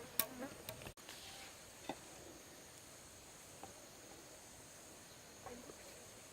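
Quiet outdoor ambience: a steady high-pitched insect drone, with a few scattered light taps or knocks, the sharpest just after the start.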